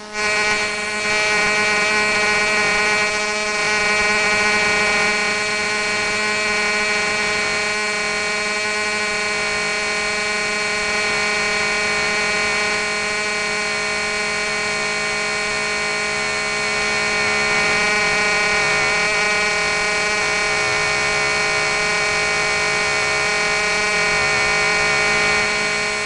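Buzzy electrical static: a loud, steady buzz of many stacked tones over a hiss, starting abruptly and holding unchanged.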